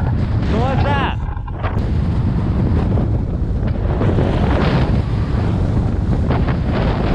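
Strong mountain wind buffeting the microphone: a loud, dense rumble that rises and falls with the gusts. A brief voice sound comes through about half a second in.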